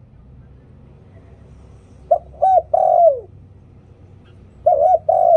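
Spotted dove cooing: two phrases, each a short note and then two longer ones, the last sliding down in pitch. The first phrase comes about two seconds in; the second starts near the end.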